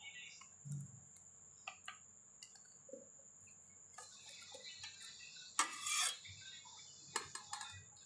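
A sheet of glass picked up and handled on a wooden table: scattered light clicks and taps, with one louder scrape about six seconds in and a few more clicks near the end.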